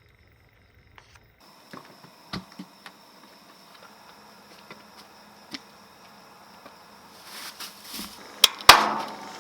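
Scattered light clicks and knocks of objects being handled, over a faint steady hum, with two loud sharp knocks near the end.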